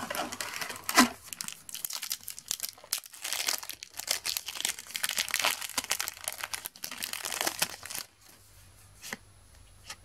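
Foil Match Attax trading-card packet being torn open and crinkled by hand, with a sharp snap about a second in. The crinkling stops about two seconds before the end.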